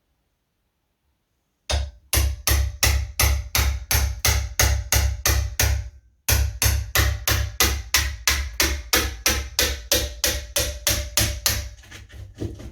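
Hammer striking a wood chisel in quick, even blows, about three a second, cutting the recess for a door latch plate in the door's edge. The blows start about two seconds in, pause briefly midway and grow fainter near the end.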